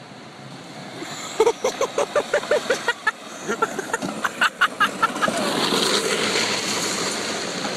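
Small off-road ride-on vehicles, a go-kart and a quad, driving along a leaf-covered dirt trail. Short voice-like calls come early, and engine and tyre noise builds from about five seconds in.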